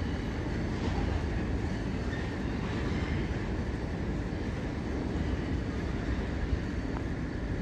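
Freight train of container wagons rolling away on the rails: a steady rumble of wheels running.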